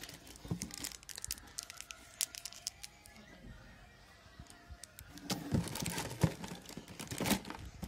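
Plastic candy wrappers crinkling and rustling as a hand rummages through a clear plastic jar of individually wrapped sweets, with light clicks of the jar being handled. The crinkling is scattered at first and busiest in the second half.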